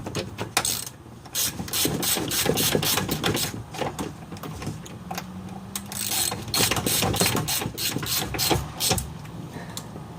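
Hand ratchet wrench clicking in quick runs as the steering box mounting bolts are turned, stopping and starting several times.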